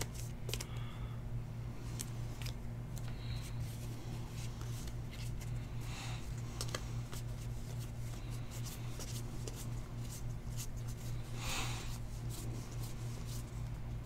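Stack of baseball trading cards being flipped through by hand, card after card sliding and snapping against the stack in light clicks and brief rustles, over a steady low hum.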